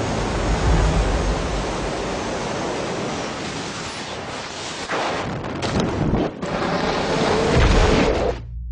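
Loud rushing wind of a BASE jumper's freefall along a cliff face, with a few sharper gusts about five to six seconds in, cutting off abruptly near the end.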